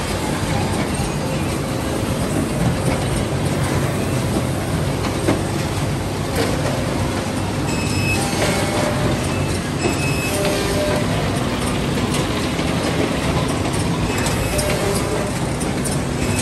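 Wohlenberg Quickbinder perfect binder running: steady mechanical noise from its drive and clamp carriage, with a low hum and a few brief higher tones now and then.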